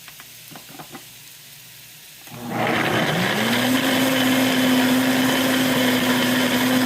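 Electric blender switched on about two seconds in, its motor spinning up with a rising hum that then holds steady as it blends a chickpea-and-water sauce. A few faint clicks come before it starts.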